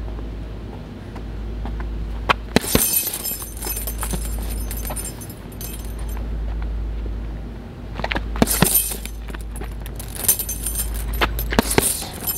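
Gloved punches knocking against an RDX heavy punch bag, with the bag's hanging chains jangling and rattling. The punches come in three short flurries, about two seconds in, around eight seconds and again near the end, over a steady low rumble.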